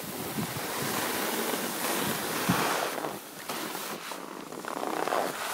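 Skis sliding and scraping over hard-packed snow, swelling and fading a few times as turns are made, with wind rushing on the microphone. A brief low knock about halfway through.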